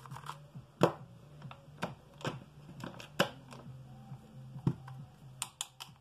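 Irregular sharp clicks and ticks of a small screwdriver working against a Saeco/Jura coffee grinder's plastic burr housing and its steel retaining balls, as the tightly packed balls are pried out one by one. Several clicks, the sharpest about a second in and about three seconds in, with a quick cluster near the end.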